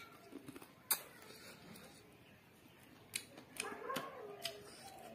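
Close mouth sounds of eating by hand: wet chewing and sharp lip smacks, the sharpest about a second in. A cluster of smacks and squishing of curry-soaked rice comes around three to four seconds in.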